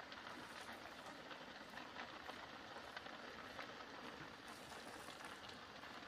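Faint crackling of a grass and brush fire: a steady hiss dotted with many small pops as the vegetation burns.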